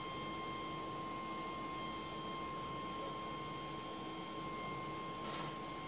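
Idle 3D printer's steady hum with several fixed whining tones from its fans and electronics. A brief rustle comes about five seconds in.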